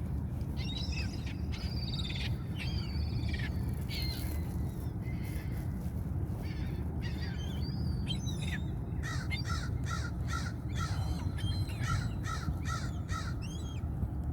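A flock of hungry seagulls calling over one another, with a quick run of short repeated calls, about three a second, starting about nine seconds in. A steady low rumble runs underneath.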